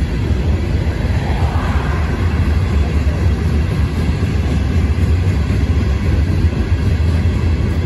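Norfolk Southern coal train's cars rolling past: a loud, steady rumble of steel wheels on the rails.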